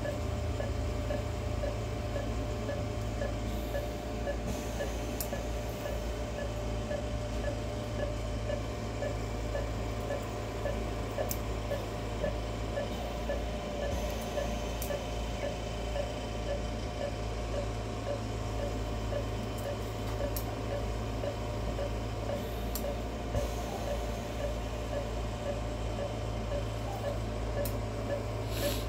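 Operating-room hum with a quick, regular beeping from a patient monitor keeping time with the anaesthetised dog's pulse, plus a few faint clicks from steel surgical instruments.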